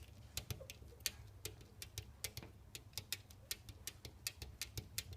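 A bird pecking at window glass: rapid, uneven sharp taps, about four or five a second.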